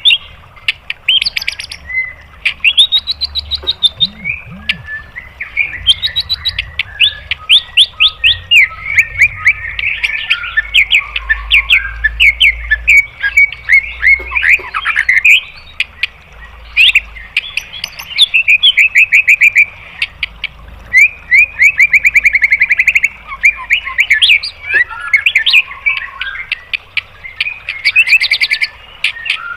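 White-rumped shama (murai batu) singing in long rapid-fire runs of quick repeated notes, the 'tembakan' phrases, with short pauses between them.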